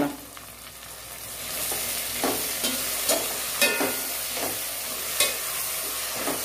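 Chopped tomatoes sizzling in hot oil with fried onions in a speckled non-stick pot. The sizzle builds up about a second and a half in, and a spatula stirs them with repeated scrapes against the pot.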